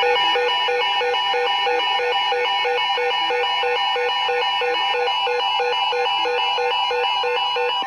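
Several NOAA Weather Radio receivers sounding their alert alarms at once: a rapid, evenly pulsed electronic beeping, several beeps a second, over steady tones, which cuts off near the end.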